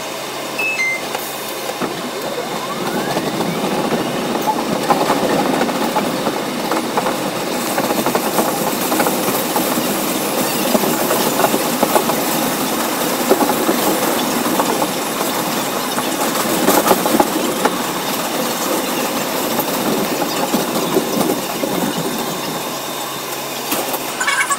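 Bombardier R62A subway train pulling away from a station, a rising whine from its camshaft-controlled DC traction motors about two seconds in, then steady wheel-on-rail running noise with frequent clicks as it travels along the elevated track.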